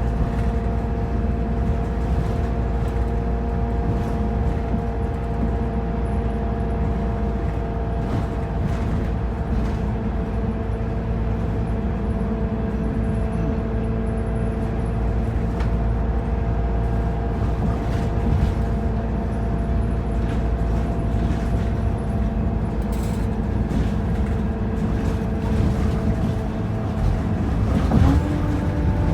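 Optare Versa single-deck bus heard from on board: engine and drivetrain running under a steady low rumble, with several steady whining tones on top. Near the end the whine glides and settles at a new pitch.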